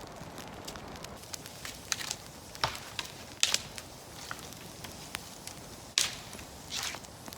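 Newly lit campfire of birch bark and twigs crackling as it catches, with irregular sharp pops over a low hiss; the loudest pops come about three and a half and six seconds in.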